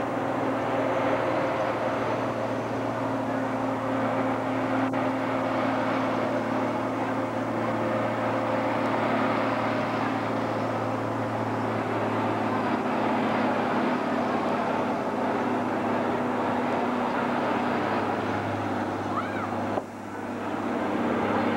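Green John Deere farm tractor's engine running steadily under load while pulling a weight sled down a dirt track. The sound drops out briefly near the end.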